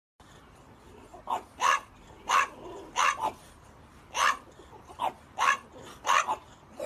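French bulldog barking, about ten short barks starting about a second in, some in quick pairs.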